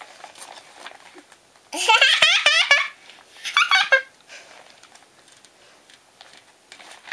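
A toddler girl giggling in two high-pitched bursts, one of about a second and a shorter one just after.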